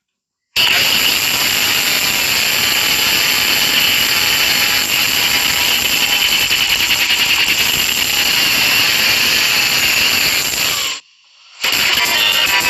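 Broken alarm clock giving out a loud, harsh hiss like radio static, starting abruptly about half a second in and cutting off suddenly near the end.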